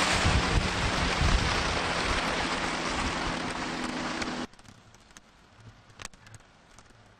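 Boat motor running steadily under way, with a rushing wash of wind and water over a low hum. It cuts off abruptly about four and a half seconds in, leaving near quiet with a few faint clicks.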